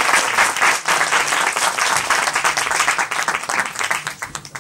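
An audience applauding: dense clapping from many hands that thins out and fades near the end.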